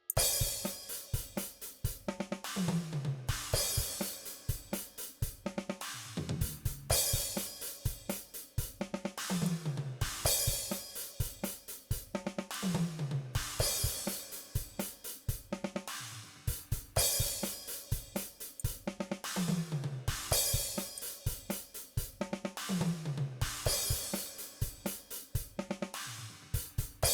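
DrumGizmo virtual drum kit playing a repeating groove: kick, snare, hi-hat and cymbals, with a descending tom pattern recurring about every three and a half seconds.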